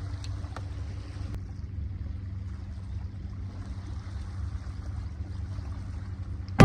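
Low, steady rumble of a boat's engine running, with a faint hum that shifts lower about a second and a half in.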